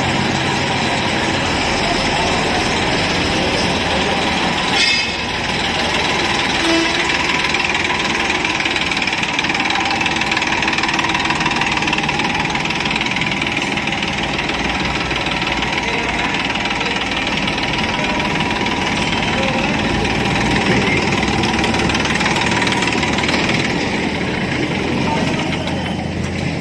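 Massey Ferguson 241 tractor's three-cylinder diesel engine running steadily, with a brief louder burst about five seconds in.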